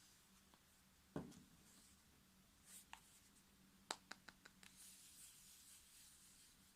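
Faint handling sounds in a small room: a soft knock about a second in, some light rustling, then a quick run of about five small clicks.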